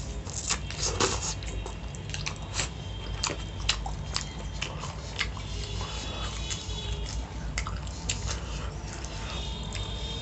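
Close eating sounds: breaded fried chicken being bitten and chewed, with many irregular sharp mouth clicks and smacks over a steady low hum.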